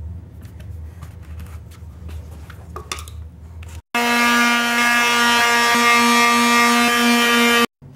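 A screwdriver turning an outlet cover-plate screw, with faint small scrapes and clicks. About four seconds in, an electric palm sander runs with a loud, steady whine, sanding wood filler on beadboard wainscoting, then cuts off suddenly shortly before the end.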